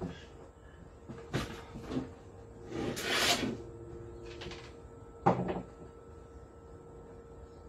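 A wooden board being handled and set into a wooden frame: a couple of light knocks, a rasping scrape about three seconds in, then a sharp wooden knock a little after five seconds as it is laid down.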